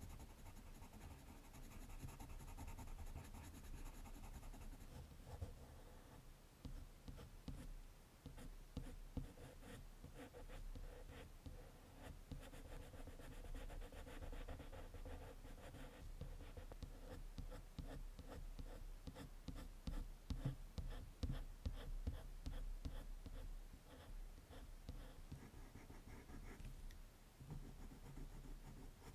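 Colored pencil scratching on drawing paper in quick, short, repeated strokes as the eyes are shaded and outlined.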